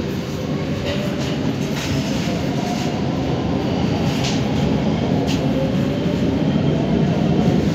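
Brussels metro train heard from inside the car while running: a steady low rumble of wheels on rail, growing gradually louder, with a few short sharp clicks and squeaks from the running gear.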